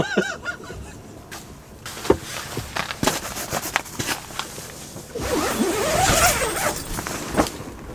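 A zipper being pulled, with rustling of heavy winter clothing and scattered knocks as a person gets up and moves; the zipping and rustling are loudest a little past the middle.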